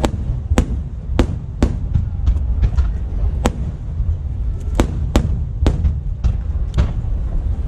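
Fireworks shells bursting in an irregular run of about a dozen sharp bangs, over a constant low rumble.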